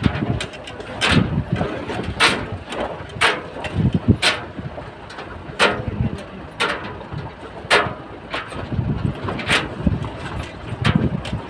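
Pickup truck driving over a rough stony dirt track: a low engine rumble under sharp knocks and rattles, roughly one a second, as the vehicle jolts over stones.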